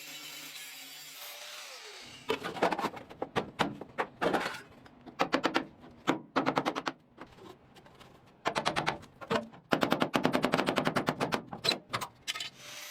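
Rapid runs of sharp knocks, about ten a second, coming in several bursts of a second or so with short pauses between.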